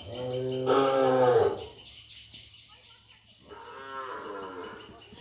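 Cattle mooing: a loud moo lasting about a second and a half, then a second, fainter moo about three and a half seconds in.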